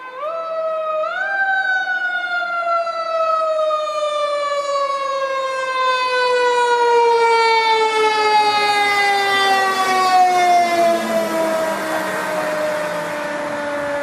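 Fire engine's mechanical siren winding up steeply in about the first second to a high wail, then gliding slowly and steadily down in pitch as the truck drives past.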